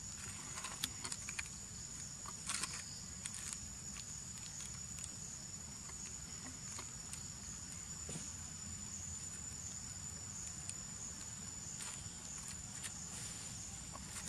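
Steady high-pitched insect drone, with scattered crinkles and clicks of a plastic snack wrapper handled and bitten by a young long-tailed macaque, mostly in the first few seconds and again near the end.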